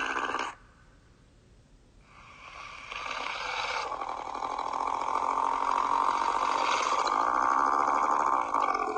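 Sound-effect sea snake snarl. A growling snarl cuts off about half a second in. After a short pause, a long rough snarl builds over a couple of seconds, holds loud, and stops suddenly at the end.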